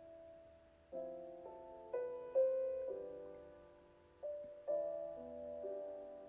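Slow, gentle background piano music: soft chords struck every half second to a second and left to fade.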